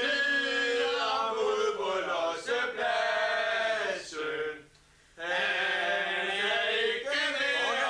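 A group of voices, mostly men, singing or chanting together in two long sustained phrases, with a short break about four and a half seconds in.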